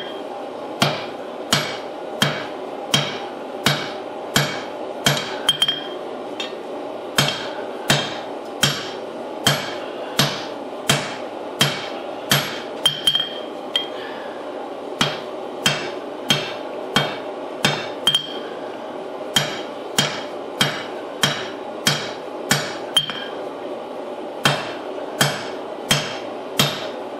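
Hand hammer striking a red-hot forge-welded damascus steel billet on an anvil to draw it out, about two blows a second with a few short pauses, some blows leaving a brief metallic ring. A steady rushing noise runs underneath.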